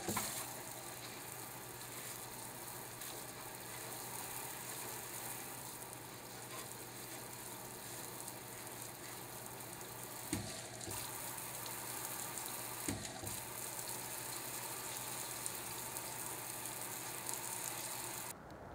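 Water spraying and splashing onto an avionics display screen, a steady hiss, with two brief knocks about ten and thirteen seconds in; it cuts off suddenly near the end.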